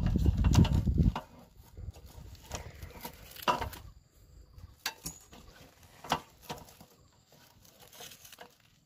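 A low rumble in the first second, then bamboo grilling sticks clicking and creaking as they are worked loose from a grilled fish, with a few sharp clicks about a second apart.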